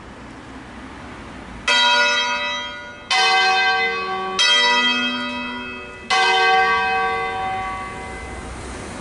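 Church bells from a six-bell ring tuned in D-flat, cast by Crespi of Crema in 1885, rung as a funeral concerto. There are four separate strokes about a second and a half apart, each starting suddenly and ringing on as it fades.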